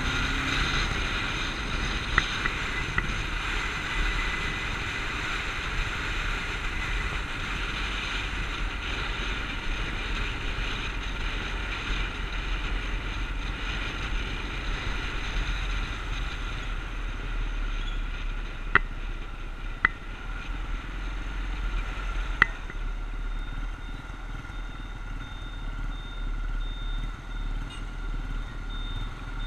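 Motorcycle running at a steady road speed, heard through a bike-mounted action camera with wind rush and a constant low rumble. A few sharp clicks cut through, three of them close together past the middle.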